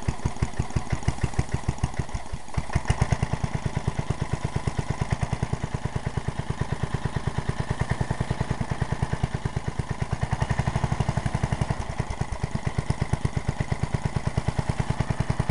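A 7-horsepower single-cylinder small engine idling low and slow, a steady rapid train of firing pulses, because it is just after a cold start in freezing weather. It dips briefly about two seconds in, then carries on.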